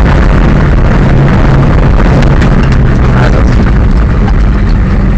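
Monster truck's engine running loud, heard inside the cab, with a steady low drone and frequent short knocks and rattles as the truck bounces over the dirt track.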